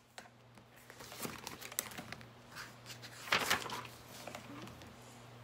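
Crinkling and rustling handling noise as hands move things about on a table, in scattered short strokes with the loudest rustle a little past three seconds in. A faint steady low hum lies underneath.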